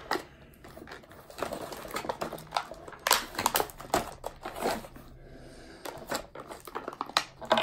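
Clear plastic toy packaging and small plastic toy pieces being handled as a playset is unpacked: irregular clicks, taps and crinkles, a few sharper clacks a little after three seconds in.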